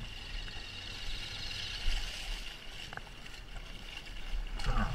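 Shallow river water rushing and splashing steadily around the rider's legs and the fallen motorcycle, with a knock about two seconds in and a short voice-like sound near the end.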